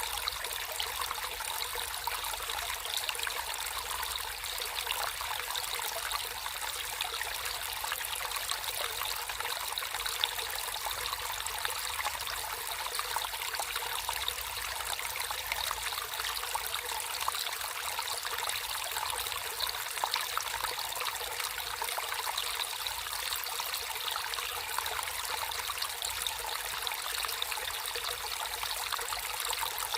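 Water trickling and flowing over stones in a small natural stream, a steady bubbling splash with no pauses.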